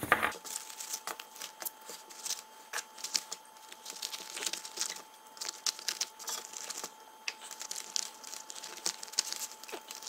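Handling noise of small items being packed into a small fabric pouch on a table: irregular rustling and crinkling with many small clicks and taps.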